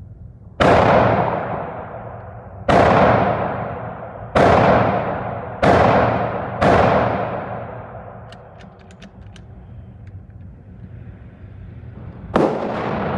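Rifle shots on a shooting range, six in all at uneven spacing, each a sharp crack that dies away over a second or two. A few light clicks come between the fifth and the sixth.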